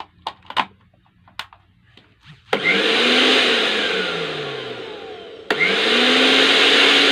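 Panasonic blender motor on a test run after repair, in two short bursts. A few clicks come first. The motor starts suddenly about two and a half seconds in, whirs up, then slows and fades. With a click about five and a half seconds in, it starts again.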